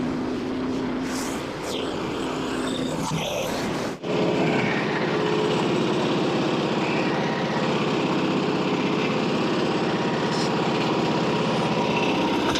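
Small gas engine of a Frontier OS27 portable band sawmill running steadily under load. The sound breaks off abruptly about four seconds in and resumes as a steady, even engine note.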